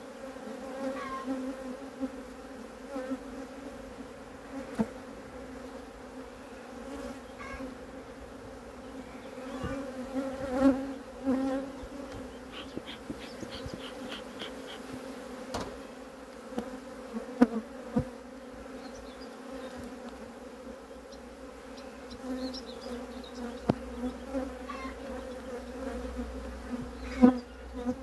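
Honeybees buzzing in a steady hum from an open hive as brood frames covered in bees are lifted out. Occasional sharp knocks ring out, the loudest near the end.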